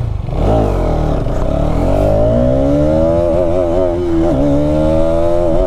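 Hero Xtreme 250R's single-cylinder engine pulling under throttle, its pitch climbing over the first few seconds and then holding fairly steady, with a brief dip about four seconds in.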